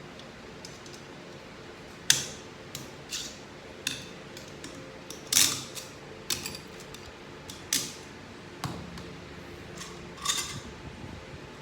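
Metal transmission parts being handled on a workbench: about ten separate clinks and knocks of clutch drums and clutch plates set down and moved, the loudest a couple of seconds in and around the middle.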